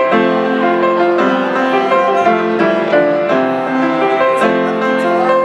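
Grand piano playing a slow accompaniment of sustained chords and melody notes, changing about every half second to a second.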